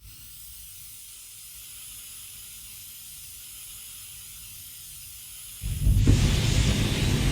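Flamethrower sound effect: a steady high hiss of pressurised gas, then about five and a half seconds in a sudden loud, deep blast of fire that keeps going.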